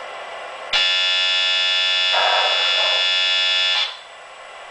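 A steady buzzing tone from the MTH R-1 O-gauge model subway's onboard sound system, starting under a second in and cutting off about three seconds later, with a short hiss in the middle of it.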